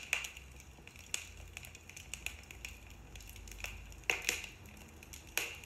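Wood fire crackling in a fireplace: scattered sharp pops and clicks over a faint low rumble, with a short cluster of louder pops about four seconds in and another near the end.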